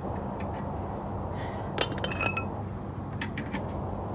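Metallic clicks and clinks from a steel crank rod turning a car's scissor jack to raise the car, with one ringing metal clink about two seconds in, over a steady low hum.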